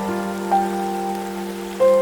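Soft instrumental hymn music with held notes, new notes coming in about every second, over a steady patter of rain.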